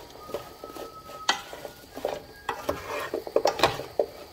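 Halved Brussels sprouts being stirred and tossed with a wooden spatula in a skillet of hot bacon grease and olive oil, over the sizzle of the fat. The spatula knocks and scrapes against the pan a few times, once about a second in and in a quick cluster near the end.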